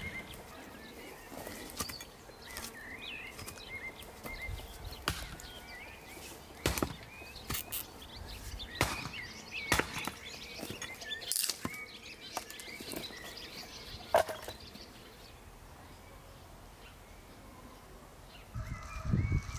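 Axe blows chopping wood on a tree stump, a series of sharp knocks about a second apart, with birds chirping.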